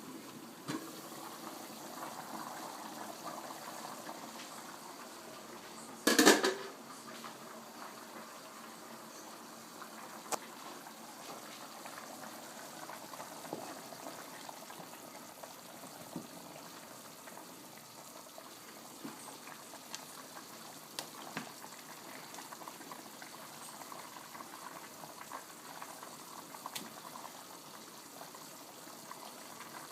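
A pot boiling on a stove: a steady bubbling hiss with scattered small pops. One brief loud clatter about six seconds in.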